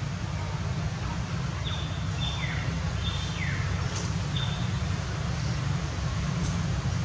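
Steady low outdoor rumble with a bird calling several times around the middle: short high whistled notes, some sliding down in pitch.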